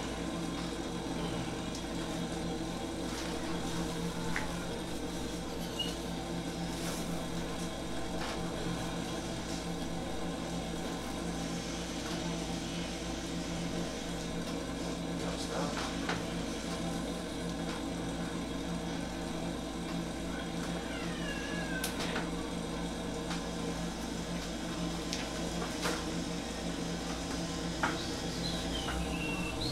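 Steady low hum of a room air conditioner, with scattered faint clicks and, about two-thirds of the way through and again near the end, a few brief high squeaky glides that fall in pitch.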